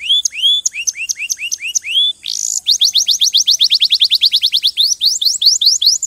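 Domestic canary singing: rapid rolls of repeated whistled sweeps, about five a second, broken by a short harsh buzzing note about two seconds in, then a faster trill of quick sweeps.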